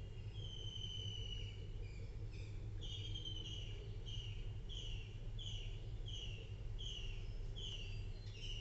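A bird chirping in the background. One longer high note comes about a second in, then short, slightly falling chirps follow about two a second, over a steady low hum.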